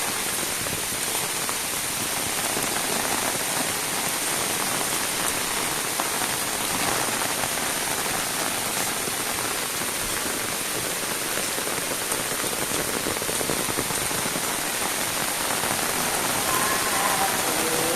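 Steady heavy rain falling and pattering on surfaces. Faint pitched tones enter near the end.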